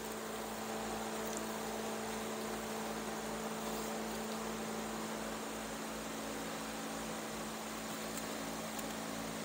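Steady electrical hum with a faint even hiss; no distinct handling sounds stand out.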